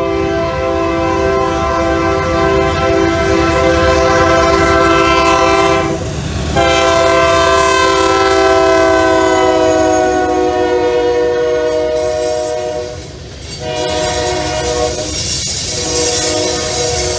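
Union Pacific diesel locomotive's air horn blowing three long blasts as it leads a freight train past. Its pitch drops during the second blast as the locomotive goes by. Underneath is the steady rumble of the engine and the rolling freight cars.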